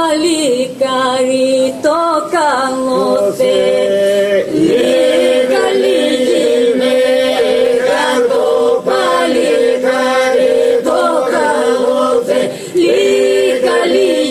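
Epirote polyphonic song sung unaccompanied by a small mixed group of men and women: a held drone note carries on underneath while the leading voices wind ornamented melodic lines above it.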